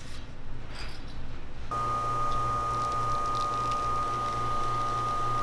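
Commercial espresso machine pulling a shot: its pump comes on about a second and a half in with a steady whine over a low hum and runs evenly while the espresso pours. A couple of light metal clicks come before it, as the portafilter is seated.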